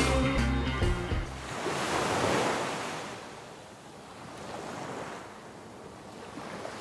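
Rushing, surf-like noise that swells about two seconds in, fades, and rises again more softly, after the tail of a rock track cuts off about a second in.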